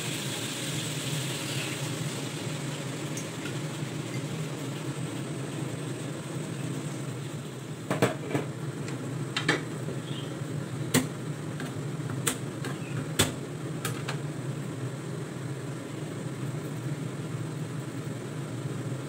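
Steady low kitchen hum from a lidded wok of soup heating on a lit gas burner. Between about 8 and 14 seconds, a cleaver knocks sharply on a cutting board several times.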